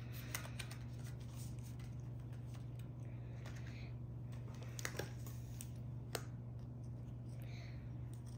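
Quiet handling of trading cards and a pair of plastic-handled scissors: a few light clicks and taps as the cards are put down and the scissors are picked up and opened against a foil booster pack, over a steady low hum.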